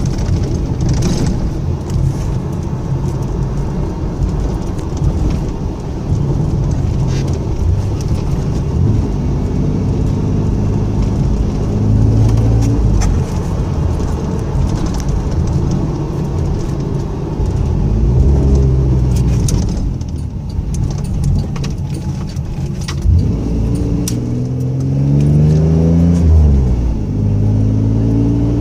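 A 1997 Camaro's 3.8-litre V6 pulling the car over rough road, heard inside the cabin: a steady low road and tyre rumble with scattered rattles and knocks, and the engine note rising in pitch as it accelerates, most clearly near the end. No unusual driveline noise is heard from the newly fitted aluminium driveshaft.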